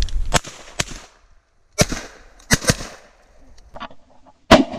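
Several shotgun shots in quick succession, sharp and spread over about three seconds, the last one the loudest, with fainter sharp cracks between them.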